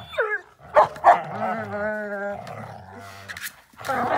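Dogs vocalizing during rough play: a short falling yelp, two sharp barks about a second in, then a drawn-out call with wavering pitch over a low growl, and more barking and growling near the end.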